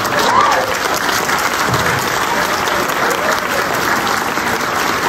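Audience applauding steadily, a roomful of hands clapping together.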